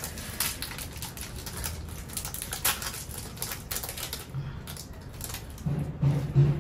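Thin plastic wrapper of a mini KitKat bar crinkling and crackling as it is torn open and peeled off by hand, a quick irregular run of crackles that thins out after about four and a half seconds. A brief low voiced hum near the end.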